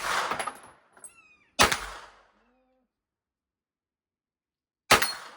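Smith & Wesson M&P FPC 9mm folding carbine fired three times at a slow pace: once right at the start, once about a second and a half in, and once near the end, each shot trailing off in a short echo. A brief falling high-pitched animal-like call sounds between the first two shots.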